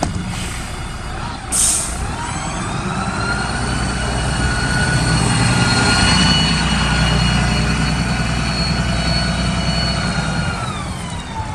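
Karosa B961 articulated city bus pulling away from a stop: a short burst of air hiss about a second and a half in, then the diesel engine running with a drivetrain whine that rises as the bus gathers speed, holds steady and falls away near the end as it drives off.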